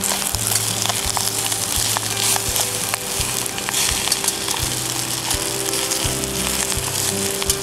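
Food sizzling in a stainless steel pot on a camp stove while a metal spoon stirs it, with frequent scraping clicks of the spoon against the pot.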